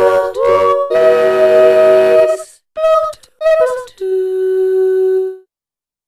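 Realivox Blue sampled solo female voice played in Kontakt, singing a legato line of sung syllables with slides between notes, a long held note near the start and two short notes in the middle. It ends on a held note that cuts off about a second and a half before the end, leaving silence.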